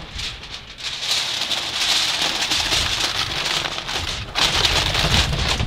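Aluminum foil crinkling and crackling as a sheet is pressed and crimped down around the rim of a foil pan, with a short pause a little past four seconds in.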